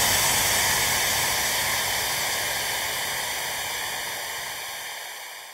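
Closing white-noise wash of an electronic dubstep track: a steady hiss with a few faint high ringing tones, slowly fading out.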